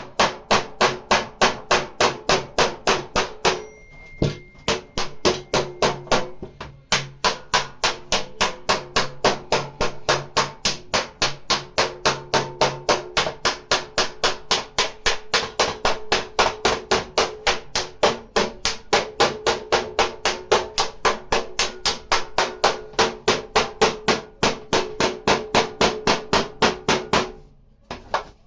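A hammer beating the steel panel of a car's front door to straighten accident damage, striking steadily about three times a second with a metallic ring. It pauses briefly twice near the start and stops shortly before the end.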